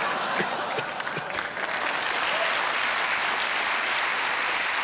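Studio audience applauding, building over the first second or two and then holding steady.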